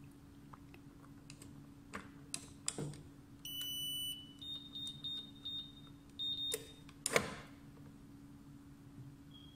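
Electronic keypad of a smart safe: a few light taps, one longer high beep, then a run of short beeps as the code is keyed in. Sharp clicks follow, the loudest near the end, as the lock releases and the door is opened.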